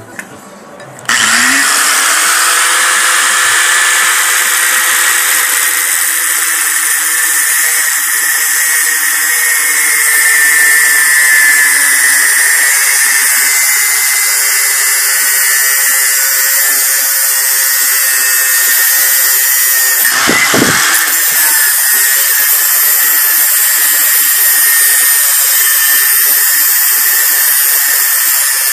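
Electric angle grinder with an abrasive cut-off disc starting about a second in, then running steadily while it cuts through a flat steel bar: a loud, high grinding hiss over the motor's whine.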